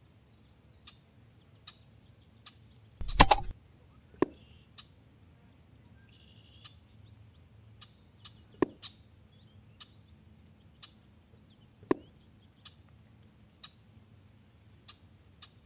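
A single shot from an EDgun Leshiy 2 7.62 mm air rifle about three seconds in. It is followed by a sharp knock about a second later and two more near the middle and later on, over faint scattered ticks and a few short bird chirps.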